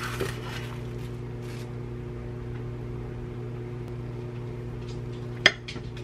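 Plastic cling wrap crinkling as it is peeled off a kabocha squash, then a knife cutting through the squash with one sharp click about five and a half seconds in, over a steady electrical hum.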